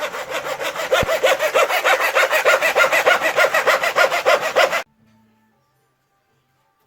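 Hand saw cutting through wood in fast, even back-and-forth strokes, stopping abruptly near the end.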